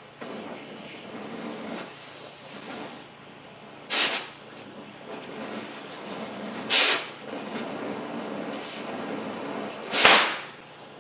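Oxy-acetylene cutting torch hissing steadily on a steel wheel-bearing race, with three short, loud blasts about three seconds apart as the cutting oxygen is blipped to burn away a cherry-hot spot of the race.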